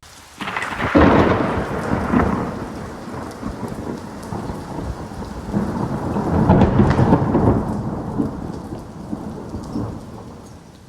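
Thunder: a sharp crack about a second in, breaking into a long rumble, then a second rolling peal that swells and fades away near the end.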